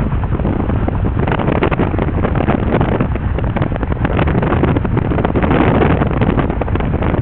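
Wind buffeting the microphone from a moving car, over the steady rumble of the car driving along the road.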